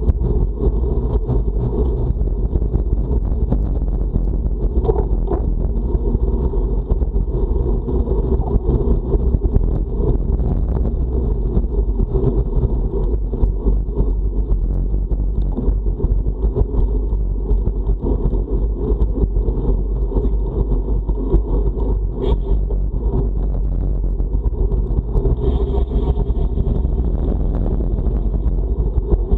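Steady wind rumble buffeting the microphone of a camera riding along on a moving road bike, heavy in the low end.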